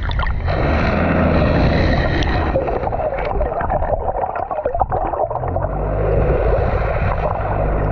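A fishing boat's engine running low and steady under loud churning, gurgling water alongside the hull.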